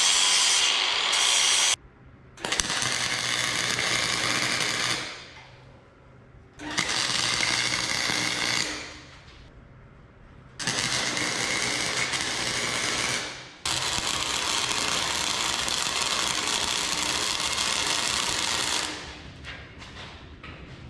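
An angle grinder grinding a steel bolt for under two seconds, then a Chicago Electric 120-volt AC stick welder's arc running in four stretches of a few seconds each, the last the longest, as weld is laid on a coated bolt.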